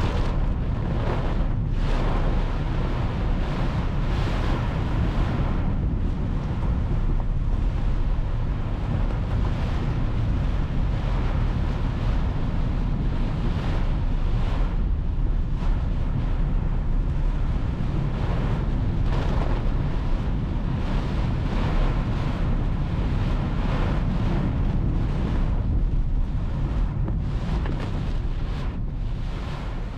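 Typhoon downpour and strong wind, with gusts buffeting the microphone in a continuous low rumble under a steady hiss of rain.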